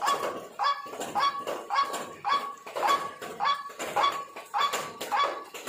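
White-breasted waterhen (ruak-ruak) calling, its harsh 'kru-ak' note repeated evenly about twice a second, as used for a bird-luring call.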